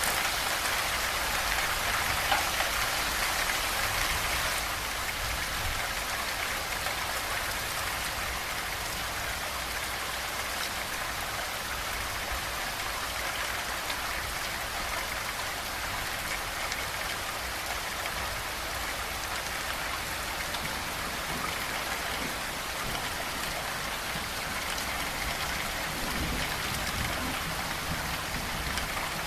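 Steady rain falling: a dense, even patter of drops, a little louder in the first few seconds.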